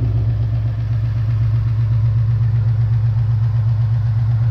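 2018 Ford Mustang GT's 5.0 V8, running stock mufflers with an X-pipe and resonator delete, idling steadily just after starting. The idle runs without the typewriter tick, its short block having been redone.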